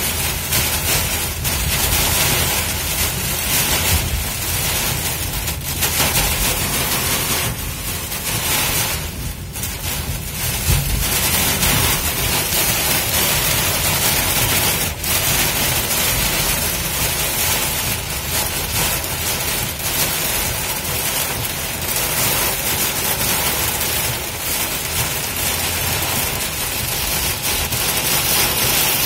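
Torrential rain hitting a car's roof and windshield, heard from inside the cabin as a loud, steady hiss.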